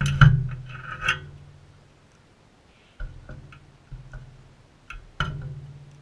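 Sulphur-crested cockatoos' beaks knocking and tapping on a seed feeding bowl as they feed, with a few sharper clicks. The knocks come at uneven intervals, each with a short low ring: a cluster at the start, several around three to four seconds in, and a loud one about five seconds in.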